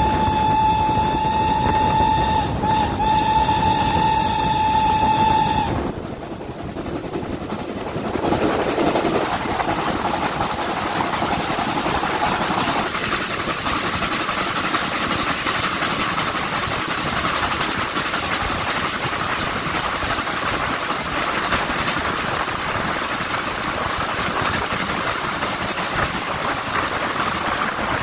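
Steam locomotive whistle held on one long steady note, with a brief dip partway, cutting off about six seconds in; then the steady rushing noise of the train climbing hard at speed behind a BR Standard 9F 2-10-0 on a steep 1 in 49 gradient.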